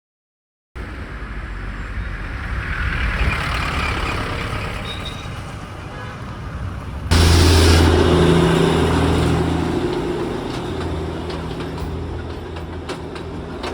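Motor vehicle engine and road noise, coming in after a moment of silence. About seven seconds in it turns suddenly louder, with a deep engine hum that slowly fades.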